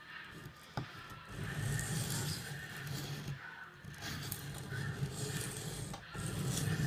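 Steel blade of a large recurved knife scraped in repeated strokes across a coarse sharpening stone, the rasp swelling and easing with each pass, with a single sharp click about a second in.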